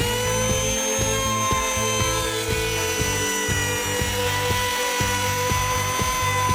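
An electric power tool's motor, just up to speed, running with a steady high whine, over background music with a steady beat.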